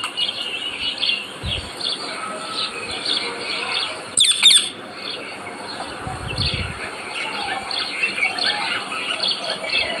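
Green parakeet gives one loud, harsh screech about four seconds in, over steady high chirping of birds. There are soft low thumps near the start and after the screech.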